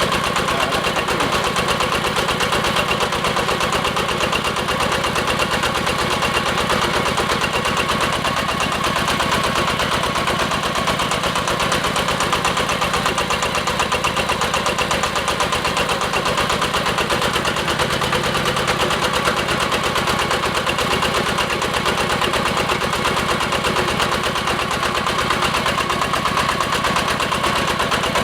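Diesel engine of a hydraulic water well drilling rig running steadily at constant speed.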